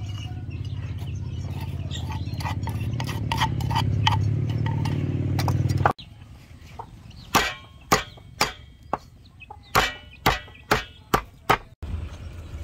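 A steady low hum for about six seconds, with a few faint clicks. Then a meat cleaver chops garlic on a round wooden chopping block: about ten sharp chops, roughly half a second apart, in uneven runs.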